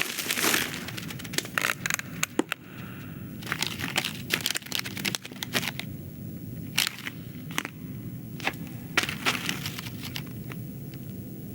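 Film sound effects: irregular sharp cracks and snaps, several a second at first and sparser later, over a low steady background.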